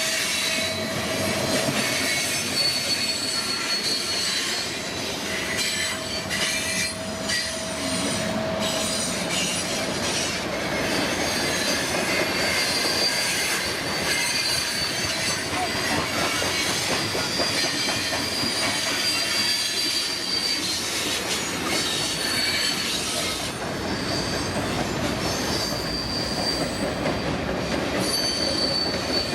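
CPKC freight train cars rolling steadily past, with wheels squealing in thin, high, on-and-off whines over a continuous rumble and clatter of wheels on rail.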